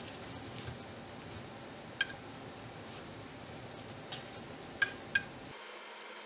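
Sharp metallic clinks of a stirrer knocking against the rim of a metal can of wood stain: one about two seconds in, then two in quick succession near the end.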